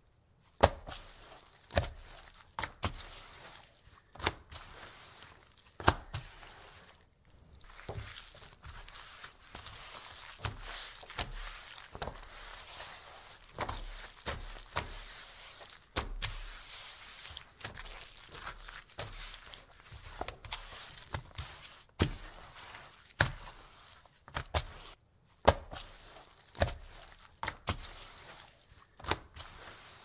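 A very wet dish towel being slapped down and wiped across a wooden table: swishing rubbing with sharp wet slaps and thuds about once a second, pausing briefly a couple of times.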